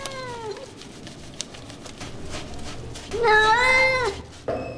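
Wet cat meowing while being shampooed in a bath: a call that trails off about half a second in, then a louder meow of about a second, about three seconds in, that drops in pitch at its end.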